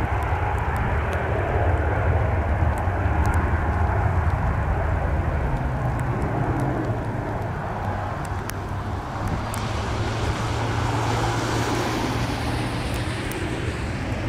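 Twin rear-engined business jet climbing away after takeoff, its turbofans giving a steady jet rumble that thins out in the second half as it recedes, with a higher hiss coming in near the end.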